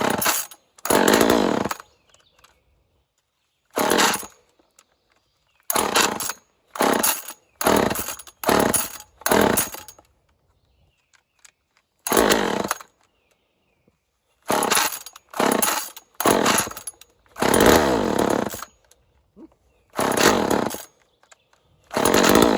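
Cold two-stroke chainsaw being pull-started over and over: about fifteen short bursts with pauses between, each pull spinning the engine. A few bursts run a second or so longer as the engine sputters and nearly catches, but it does not keep running.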